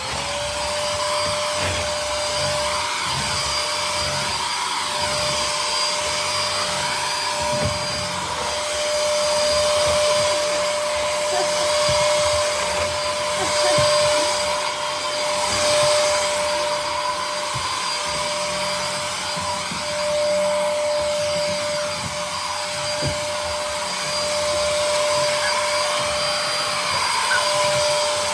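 Vacuum cleaner running, with a steady high motor whine over the rush of suction that swells and dips in loudness.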